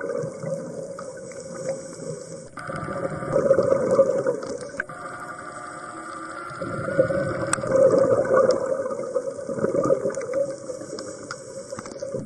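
Underwater water noise: bubbling and gurgling over a steady hum, swelling louder twice.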